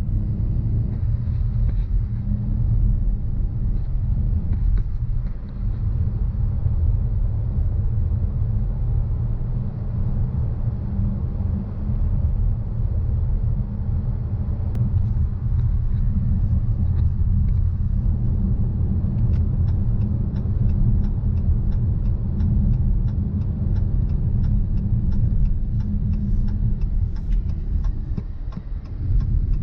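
A car on the move: a steady low rumble of engine and road noise. Through the second half, a light regular ticking comes in at about two or three ticks a second.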